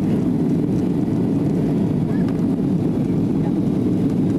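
Steady low-pitched jet engine and airflow noise inside the cabin of a Boeing 737, heard from a rear seat while the airliner climbs after takeoff.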